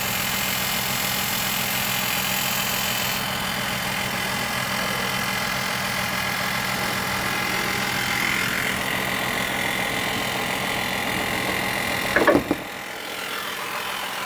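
Engine of a 2020 Ford Explorer Police Interceptor Utility running steadily, with a rattle from the under-hood engine area. About twelve seconds in there is a brief loud clatter, and after it the sound drops for a second or so.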